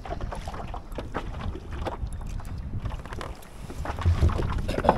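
Wind rumbling on the microphone aboard a fishing kayak, with irregular small clicks and knocks. A heavier low thump comes about four seconds in.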